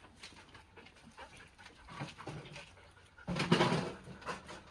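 A husky dog panting. About three seconds in there is a louder, noisy burst.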